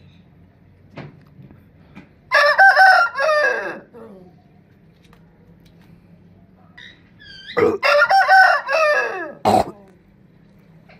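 A rooster crowing twice, each crow lasting about a second and a half with a falling, drawn-out end. A sharp knock comes just after the second crow.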